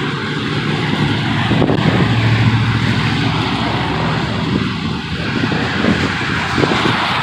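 Road traffic passing on a wet road: steady tyre hiss with a vehicle's engine hum swelling about two seconds in.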